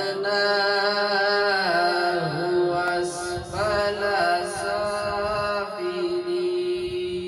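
A man reciting the Quran (tilawat) in a slow, melodic chant through a microphone and loudspeaker, holding long notes with ornamented turns of pitch. He breaks off briefly about three seconds in, then starts a new phrase that settles on a long steady note near the end.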